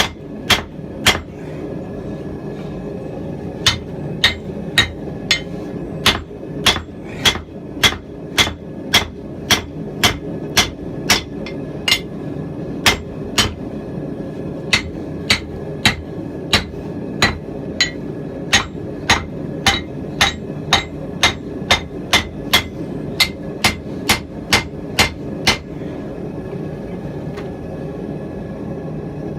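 Hand hammer blows on a hot rounding-hammer blank on an anvil: sharp ringing strikes at about two a second, pausing briefly near the start and stopping about four seconds before the end, over a steady low rushing noise.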